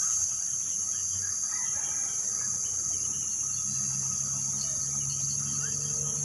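Steady, high-pitched chorus of insects in the riverside vegetation, with faint scattered bird chirps.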